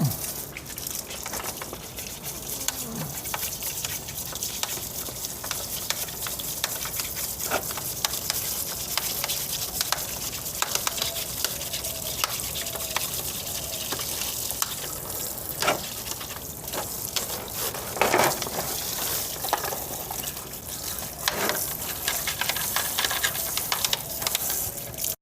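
Running water splashing and spattering on a window air conditioner's plastic front grille as it is washed, with a few louder knocks as the grille is handled.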